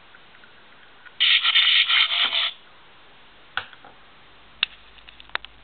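A short electronic sound effect, a little over a second long, played through the small built-in speaker of a Transformers Sentinel Prime Leader Class toy, followed by a few sharp plastic clicks.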